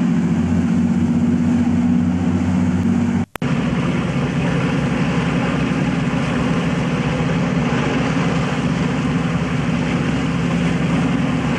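A fishing boat's engine runs steadily under way as a continuous low drone, with a broad rush of noise over it. The sound cuts out for a split second about three seconds in.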